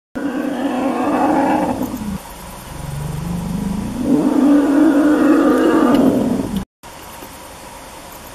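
African elephant cow roaring twice: a first call of about two seconds, then a second that rises in pitch and holds loud for a couple of seconds before cutting off abruptly. Quieter steady background noise follows.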